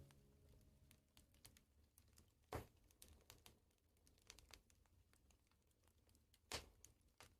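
Faint crackling of a wood fire: scattered small ticks and two louder pops, about two and a half seconds in and again near the end. A low piano note dies away at the start.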